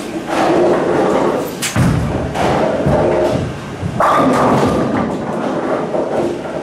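Hammer Dark Web bowling ball released onto the lane: a thud as it lands, then a low rumble as it rolls away down the lane.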